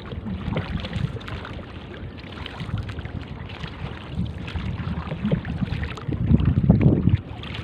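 Wind buffeting the microphone over water lapping and splashing against a small outrigger boat as hands work in the water at its side, with a louder stretch of rumble about six seconds in.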